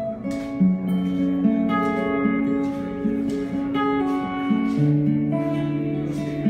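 Acoustic guitar being played: picked and strummed chords ringing out, with a lower bass note coming in about five seconds in.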